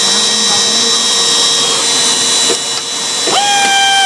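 CNC drilling machine running, a steady mechanical hum with thin high whines. About three seconds in, a new steady, pitched motor whine starts and holds.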